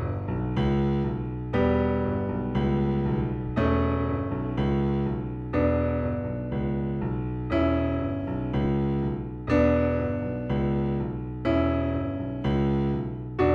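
Digital piano keyboard playing jazz chords on its own, with no voice. A new chord is struck about once a second, and each one rings and fades before the next.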